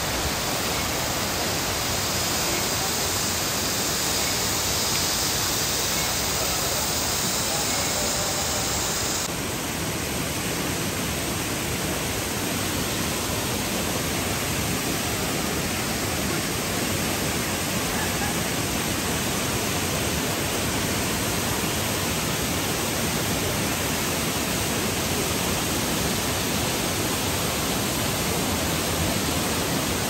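Waterfall cascading down steep rock slabs: a steady rush of falling water. Its tone shifts slightly about nine seconds in.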